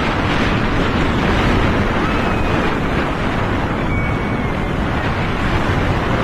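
Wind rushing over the microphone and the running rumble of the Pony Express roller coaster in motion, with a few faint short whines.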